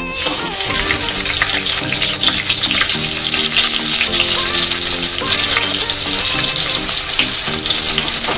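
Sliced onion dropped into hot mustard oil in a kadhai, setting off a loud, steady sizzle of frying that starts suddenly as it goes in.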